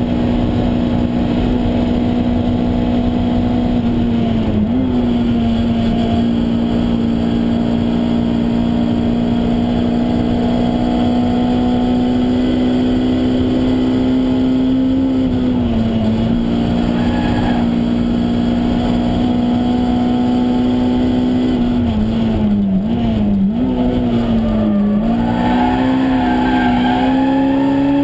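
Honda S2000's four-cylinder engine running at steady high revs, heard from inside the cabin. Its pitch dips briefly about five and sixteen seconds in, wavers down and back around twenty-two to twenty-five seconds, then climbs near the end.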